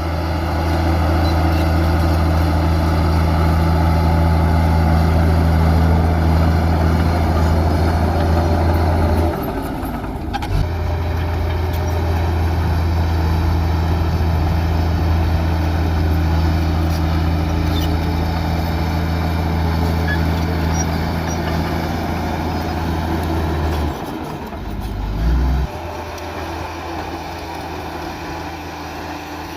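Diesel engine of heavy earthmoving machinery running with a deep steady drone. The drone drops off briefly about nine seconds in and again about two-thirds through, with a short low surge just after, then carries on quieter.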